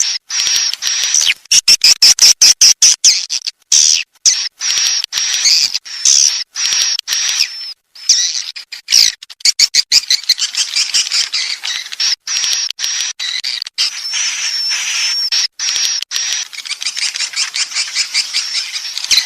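Swiftlets twittering: dense, rapid, high chirps in fast runs, broken by many short gaps.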